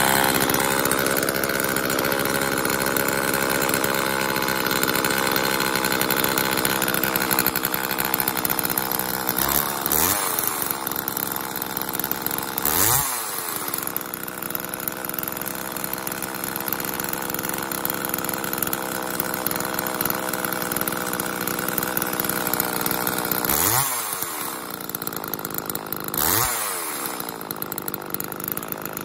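Homelite XL two-stroke chainsaw engine running on its test run after a carburetor rebuild, ticking over steadily and revved up briefly a few times, its pitch rising and falling with each rev.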